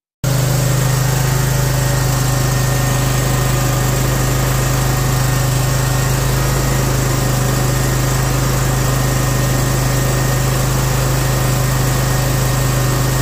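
Cub Cadet ZT1 50 zero-turn mower's engine running at a steady speed, with its newly fitted inline fuel filter in place. The hum is constant and cuts off suddenly near the end.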